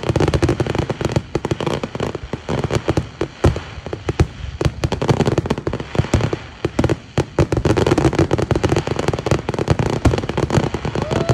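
Fireworks going off in rapid succession: a dense, irregular string of sharp bangs and pops, thinning out for a few seconds in the middle before picking up again.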